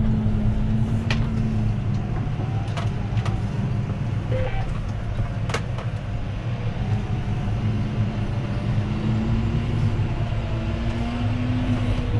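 Tractor engine running under ploughing load, heard from inside the cab; its pitch sags slightly in the middle and then comes back up. A few sharp clicks sound over it.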